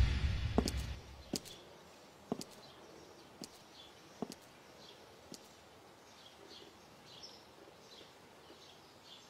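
The tail of a music sting fades over the first second, then sharp single taps about once a second from a man walking with a cane on a hard floor. Faint bird chirps come in during the second half.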